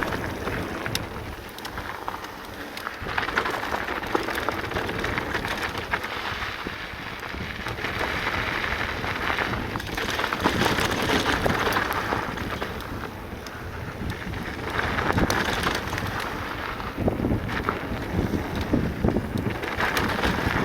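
Full-suspension e-mountain bike tyres rolling and crunching over a loose dirt and gravel trail at speed, with wind buffeting the microphone and scattered rattles and knocks from the bike. The noise swells and eases several times as the speed changes.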